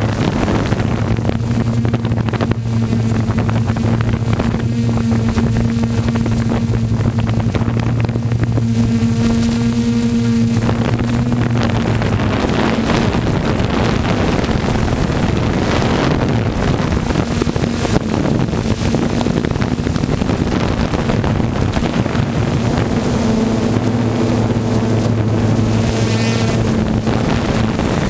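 Quadcopter drone's motors and propellers humming steadily, heard through its own camera's microphone with wind rushing over it. Midway the hum gives way to a louder rushing noise, comes back near the end, and falls in pitch at the very end as the drone sets down.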